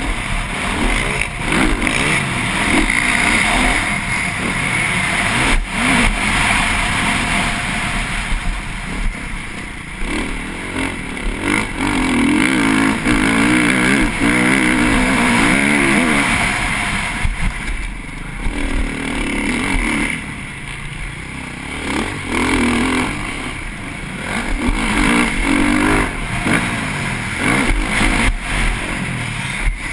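TM MX450Fi motocross bike's four-stroke single-cylinder engine revving hard under race load, its pitch climbing and dropping again and again as the throttle opens and shuts through the gears.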